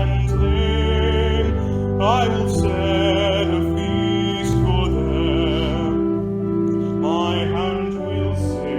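Hymn singing with a vibrato voice over sustained instrumental accompaniment, the voice sliding up into new phrases about two seconds in and again near the end.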